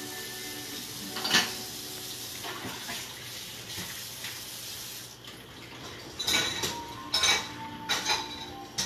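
Kitchen tap running into the sink while dishes are washed by hand, with a sharp clink about a second in. The running water stops about five seconds in, followed by several clattering knocks of plates being set into a dishwasher rack.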